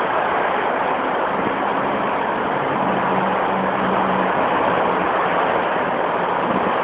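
Dense motorway traffic passing: a steady wash of tyre and engine noise, with one vehicle's low engine hum standing out for a few seconds in the middle.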